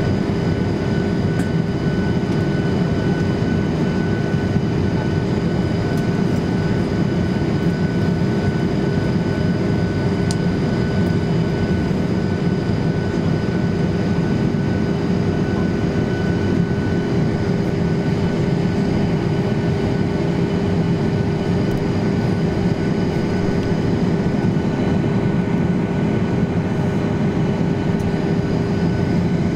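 Steady cabin noise of a Boeing 737-800 in flight: the rush of air and the hum of its CFM56-7B jet engines. A few steady tones sit over it, the strongest low and humming.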